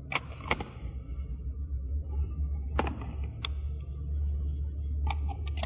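Lens hood being fitted onto a Sony 70-200mm F2.8 GM OSS II telephoto lens: a handful of short, sharp handling clicks, spread through the stretch, over a steady low rumble and background music.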